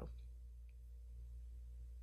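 Quiet room tone with a steady low hum.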